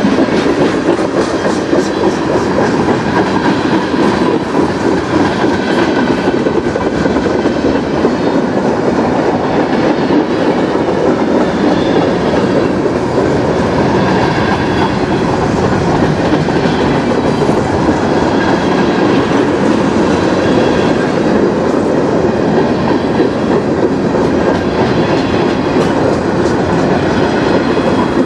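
Freight cars of a CN manifest train rolling past at close range, tank cars among them: a loud, steady rumble and clatter of steel wheels on the rails that carries on without a break.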